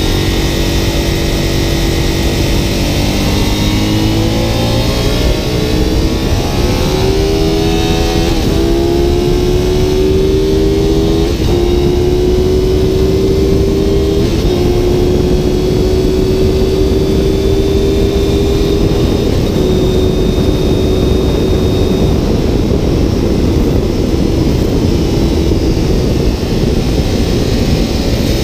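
Aprilia Dorsoduro 750's V-twin engine accelerating hard through the gears. Its pitch climbs and steps at three upshifts, about eight, eleven and fourteen seconds in, over heavy wind rush on the microphone. The engine note fades under the wind and tyre noise past the twenty-second mark.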